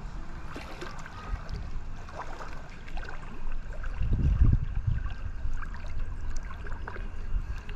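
Shallow sea water sloshing and lapping at the shore, with a low rumble and a stronger surge about four seconds in.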